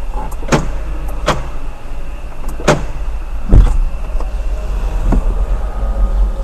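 Sharp clicks of a Jaguar's interior door lock buttons and door handle, five in all, the loudest about three and a half seconds in with a low thump as the door latch releases. A steady low hum runs underneath.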